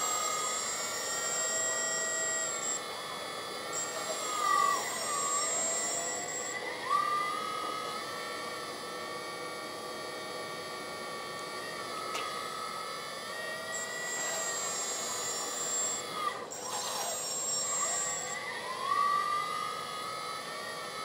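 The electric hydraulic pump of a 1/14-scale RC excavator running with a steady whine. Its pitch sags and comes back up twice as the arm moves, and a thinner high whine cuts in and out.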